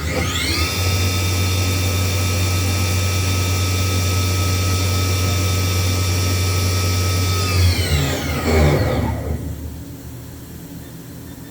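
Haas VF2 machining center spindle winding up quickly to about 7,000 RPM, running at that speed with a steady high whine over a low hum, then slowing to a stop with falling pitch about eight seconds in.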